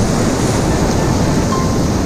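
Whitewater rapids rushing loudly and steadily around a kayak in the middle of the rapid, close on the boater's camera microphone.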